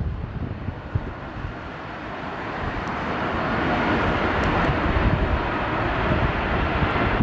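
Jet engines of an Airbus A380 on approach, the noise growing steadily louder over several seconds as the airliner comes nearer, with gusty wind buffeting the microphone at the start.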